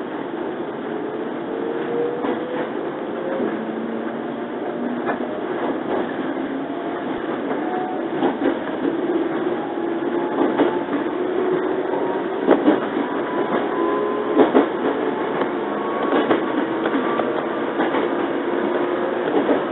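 Inside a JR 115 series electric train pulling away and gaining speed: the traction motors whine, their pitch slowly rising. Now and then the wheels click over rail joints, some clicks in quick pairs.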